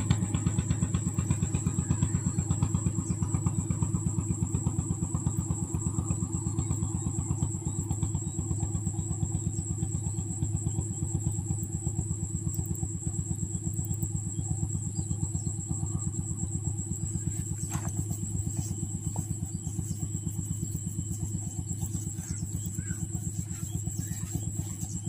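A small engine running steadily with a fast, even putter and a low hum that holds the same pace throughout.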